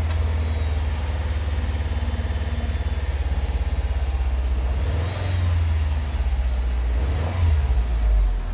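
2017 Subaru WRX STI's 2.5-litre turbocharged flat-four idling and revved twice with the AC switched on, a weird high-pitched whine riding over the engine and rising and falling with the revs. The whine comes only with the AC on, a new noise on a car with about 3,900 miles.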